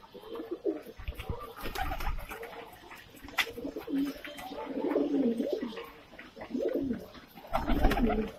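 A flock of Saharanpuri (Indian high-flyer) pigeons cooing in a loft, several birds calling over one another in repeated low coos. Low bumps about a second in and again near the end.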